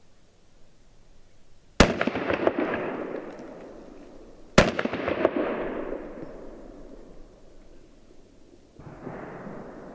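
Pistol fired one-handed, two shots about three seconds apart, each followed by a long, fading echo. A softer noise without a sharp start comes in near the end.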